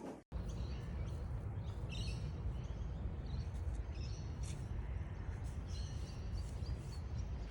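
Steady low rumble of wind on the microphone, with birds chirping several times over it.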